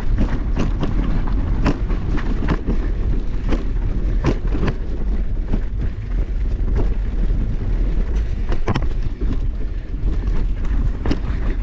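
Mountain bike being ridden on a trail: steady wind rumble on the microphone with frequent sharp clicks and clatters of the bike rattling as it rolls.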